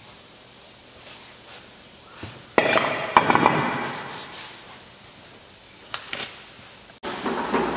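Metal tools and parts clanking and clattering with a metallic ring. It comes in a sudden loud burst about two and a half seconds in, then a couple of sharp clicks, then another clatter near the end.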